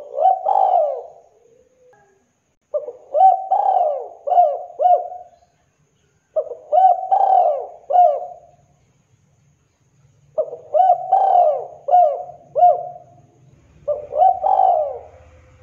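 Spotted dove (tekukur) cooing: five short phrases of three or four coos each, one every three to four seconds.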